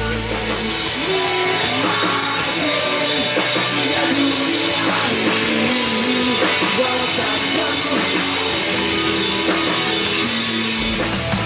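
Rock music with drums and guitar. The deep bass drops away about half a second in and returns just before the end.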